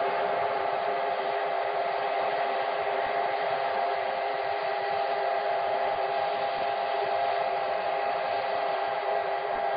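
Many sirens and horns sounding together in one steady, unbroken drone of several held tones: the mass mourning sirens and horns sounded for Mao Zedong's memorial.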